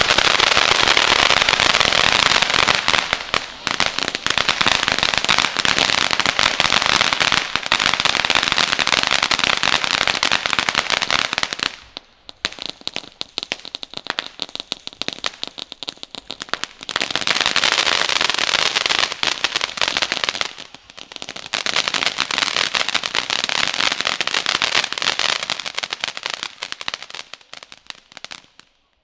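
Consumer firework batteries firing: a dense, continuous crackling and fizzing. About twelve seconds in it thins to sparser crackles for several seconds, then it comes back loud, and it fades out just before the end.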